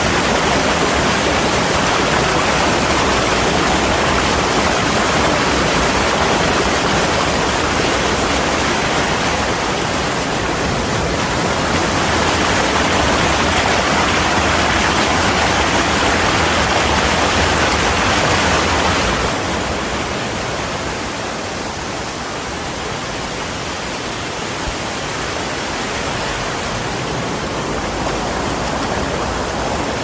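Shallow stream rushing over rocks in small waterfalls, with the microphone right at the water, giving a loud, steady rush of white water. It eases slightly about two-thirds of the way through.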